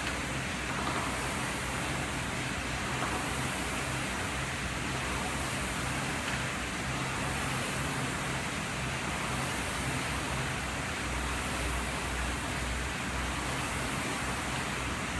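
Air-resistance rowing machine in hard use: the flywheel fan whooshes steadily, swelling with each drive stroke about every second and a half to two seconds.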